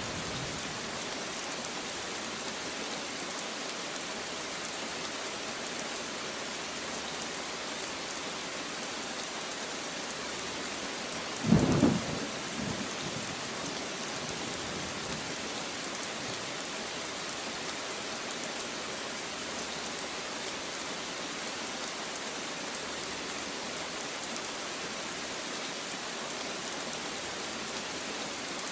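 Steady rain falling, with one short, loud clap of thunder about twelve seconds in and a brief rumble just after it.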